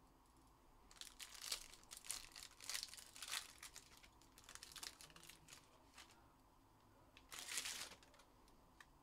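Foil trading-card pack wrapper crinkling and tearing as it is pulled open, in a run of crackly bursts from about a second in to three and a half seconds, then one more short crinkle near the end.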